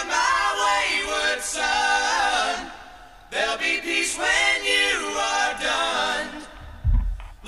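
Background song with sung vocals, in phrases with a short pause about three seconds in.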